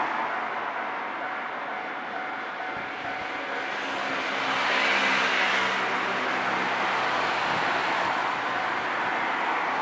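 Nankai Kada Line train running past at the station crossing. Its steady wheel and running noise swells to a peak about five seconds in, with a low motor hum through the middle.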